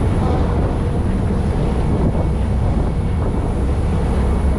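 Steady low rumble of a harbour ferry under way, heard on board, with wind on the microphone.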